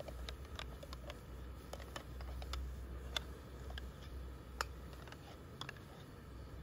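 Irregular light ticks and pops as thick apple puree drops from a plastic jar into a hot non-stick pan, two of them sharper about three and four and a half seconds in, over a low steady rumble.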